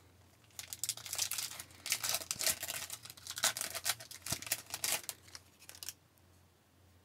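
A foil trading-card pack wrapper being torn open and crinkled, with the cards being pulled out, for about five seconds.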